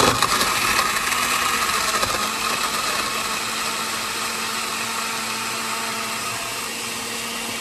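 Countertop blender switching on and running, crushing ice into a watermelon slush. It starts suddenly with a louder, rougher grinding for the first couple of seconds as the added ice breaks up, then settles into a steady whir.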